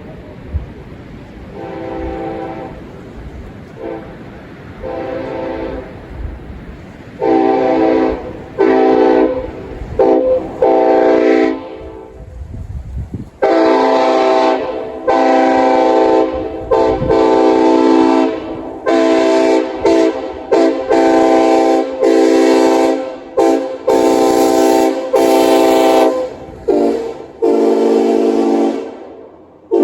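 Nathan Airchime K5LLA five-chime train air horn, raised-letter two-piece version, sounding a chord in repeated blasts. The blasts are faint at first, turn loud about seven seconds in, and then come as a long series of long and short blasts.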